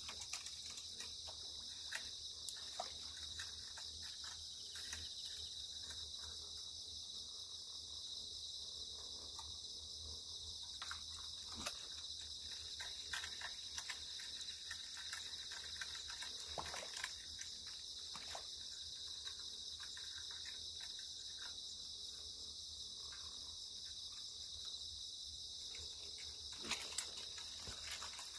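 Crickets chirring in a steady high-pitched chorus, with scattered faint clicks and ticks.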